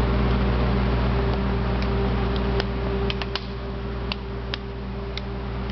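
Steady mechanical hum, with a run of short sharp plastic clicks and crackles from a plastic water bottle being handled and capped, starting about two and a half seconds in.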